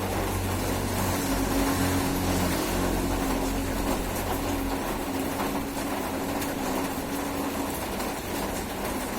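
Steady rain, a dense even hiss. Under it are a low rumble that fades about halfway through and a faint hum that comes and goes.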